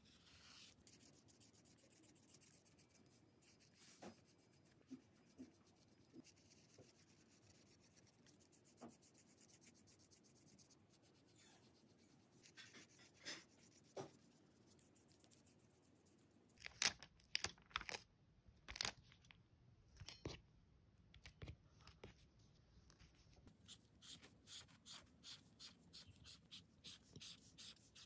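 Brush pen faintly scratching across notebook paper, then sharp crackles and clicks a little past halfway as paper stickers are peeled off their backing and pressed down, and a run of quick light ticks near the end.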